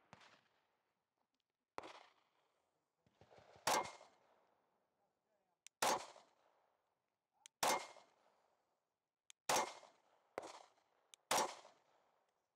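Pistol fired in single, aimed shots: seven sharp cracks about one to two seconds apart, each with a short ringing tail. The later shots come from a Sig Sauer P365 XL 9mm carry pistol.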